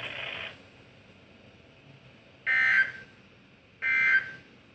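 Emergency Alert System end-of-message signal: two short bursts of two-tone digital data (SAME) about 1.3 seconds apart, marking the end of the weekly test.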